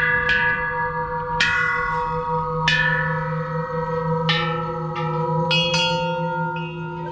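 A row of hanging golden Thai temple bells struck one after another, about once a second, each strike ringing on so that the tones overlap.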